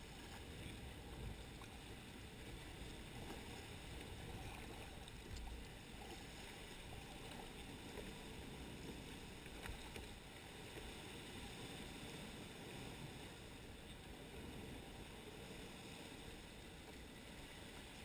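Faint water sounds of a kayak being paddled on calm sea: the paddle blade dipping and water lapping against the kayak's hull, steady throughout with a few light ticks.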